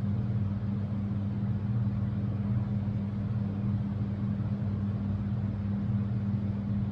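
Steady low hum with a faint even hiss, unchanging throughout: background machine or electrical hum.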